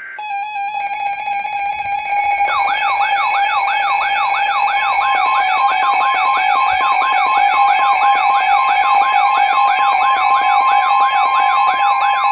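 Emergency alert attention tone, a loud steady electronic tone, with a fast up-and-down siren yelp layered on from about two seconds in. The siren's pitch rises and falls about three times a second.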